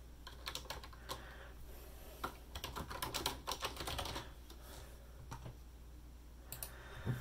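Quick, light clicks and taps in an uneven run, faint, thickest around two to four seconds in and then thinning to a few scattered ones.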